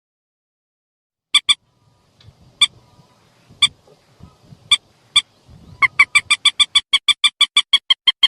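Recorded calls of a rail (burung mandar) played as a hunting lure: short sharp call notes, first singly and in pairs with pauses, then about two and a half seconds before the end breaking into a fast, even run of about five notes a second.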